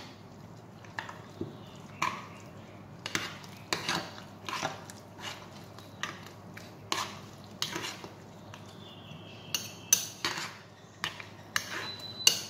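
A utensil stirring a thick quiche filling of egg, sour cream and sautéed onion in a glass bowl, with irregular clinks and scrapes against the glass about once or twice a second.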